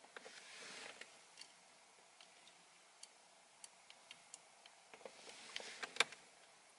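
Faint handling noise from an aftermarket aluminium paddle shifter and a plastic trim tool being worked into place on a car's steering column: scattered light clicks and ticks, with two short spells of scraping, the second ending in a sharper click about six seconds in.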